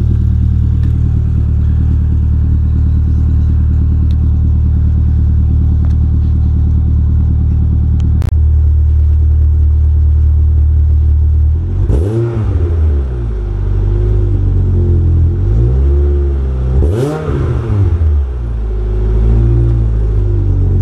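2005 Chevrolet Cobalt SS's supercharged 2.0 L four-cylinder, breathing through a long-tube header, catless downpipe and 2.5-inch ZZP exhaust, idling steadily with a deep tone shortly after a cold start. About halfway through it is revved in quick throttle blips, two sharp ones a few seconds apart with smaller ones between and near the end, giving a raspy bee-stinging sound.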